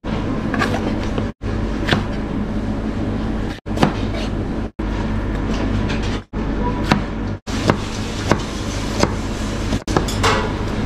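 Chef's knife chopping bell peppers and onion on a plastic cutting board: scattered sharp knocks of the blade against the board over a steady background hum. The sound drops out abruptly several times.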